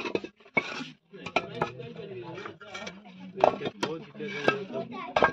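Loose bricks clinking and knocking against each other in sharp, scattered clicks as they shift, over murmured voices.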